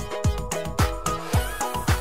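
Background dance music with a steady deep kick-drum beat, about two beats a second, under a melody.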